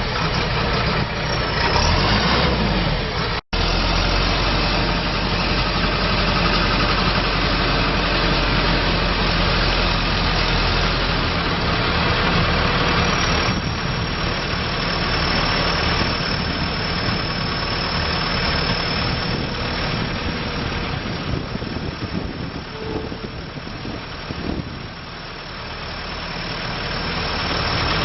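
John Deere 310J backhoe loader's four-cylinder diesel engine running steadily at idle, with a brief dropout about three and a half seconds in.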